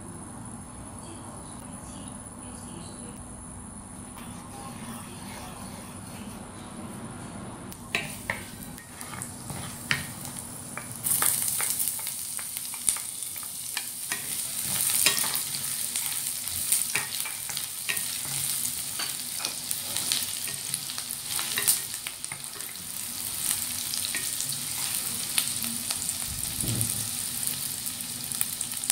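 An induction cooker hums steadily under an empty nonstick wok. About eight seconds in come a few clicks and taps, and about eleven seconds in a loud sizzle starts as chopped onion fries in hot oil. A wooden spatula scrapes and taps the pan as it is stirred.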